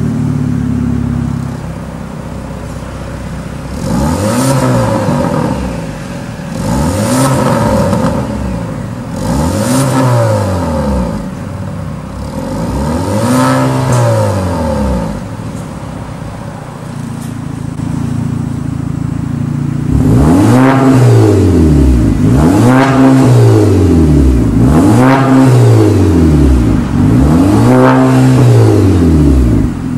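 Audi A5 engine through a Fi valved exhaust, idling and revved four times in short blips with the exhaust valves closed. About two-thirds of the way through the valves open: the idle gets louder and four more, louder revs follow.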